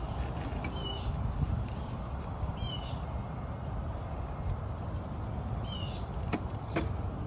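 A bird gives a short, hooked call about every two seconds over a steady low rumble. Near the end there are two sharp knocks.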